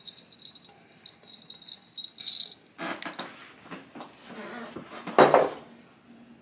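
Kitchen handling clatter: light rattling and clinking of jars and utensils being moved about at the counter, with scattered knocks and one louder knock about five seconds in.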